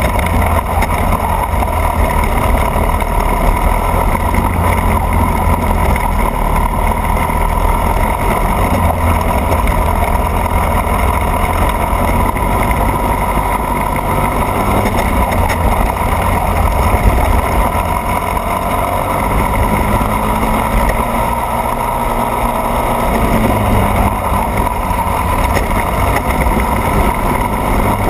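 Racing kart engine running hard through a lap, heard close up from a camera mounted on the kart, with a steady drone that rises and falls with the throttle about twenty seconds in.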